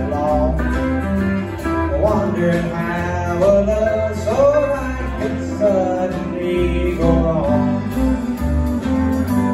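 Live country band playing a song, with acoustic and electric guitars over a steady drum beat and a wavering melody line carried on top.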